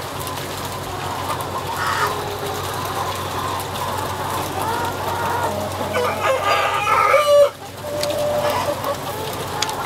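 A flock of broiler breeder chickens clucking and calling over a steady low hum, with a louder stretch of calls about six seconds in that breaks off sharply.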